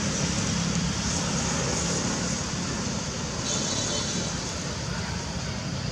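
Steady road-traffic noise with a low hum, and a brief high chirp about three and a half seconds in.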